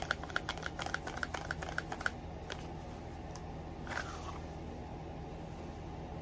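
A quick run of light, sharp clicks, about seven a second for two seconds, then a few single clicks and a short rustle, over a steady low hum.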